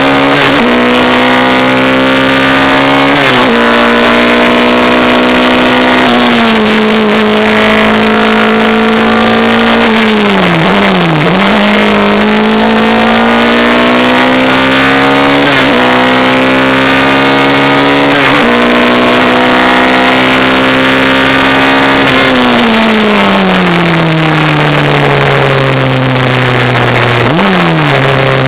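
Engine of a Volkswagen-engined Dallara 392 Formula 3 car under hard acceleration, heard from the cockpit: the pitch climbs through each gear and drops sharply at every upshift. About ten seconds in, and again over the last few seconds, the pitch falls as the car brakes and downshifts, with quick throttle blips.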